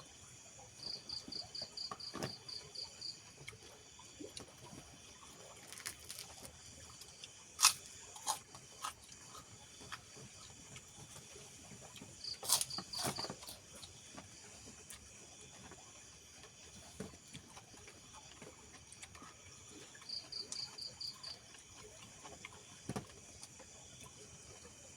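A cricket chirping in three short pulsed trills of high, even chirps, over a faint steady insect hum. A few sharp clicks and knocks come in between, the loudest about a third of the way in and again near the middle.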